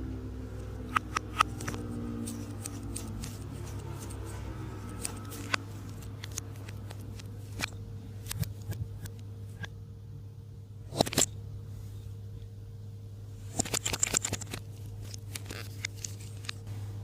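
Slime being worked by hand, giving scattered sticky clicks and pops, with two bursts of quick clicks in the second half, over a steady low hum.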